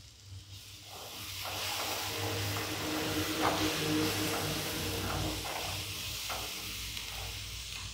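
Onion-tomato masala sizzling in a nonstick frying pan while a wooden spatula stirs and scrapes through it; the frying hiss builds about a second in and then holds steady.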